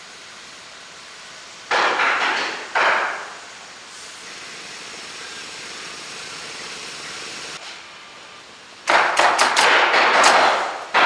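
Pneumatic roofing nailer firing a quick run of nails into asphalt shingles over about two seconds near the end, each shot sharp and sudden. Two short loud bursts of work-site noise come about two and three seconds in.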